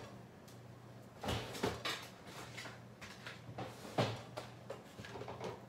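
Scattered knocks and clunks of kitchen doors and items being handled out of sight, the sharpest about four seconds in, over a faint steady low hum.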